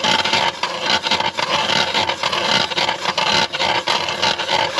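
Hand-cranked ice auger's blades cutting down through very thick lake ice: a continuous rough scraping and rasping as the crank is turned.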